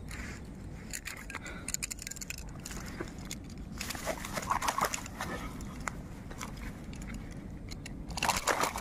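Irregular crackling, clicking and scraping handling noises, busiest about four seconds in and again near the end.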